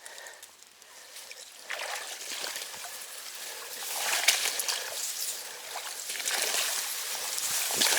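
Water trickling and splashing, with many small clicks, getting louder about four seconds in.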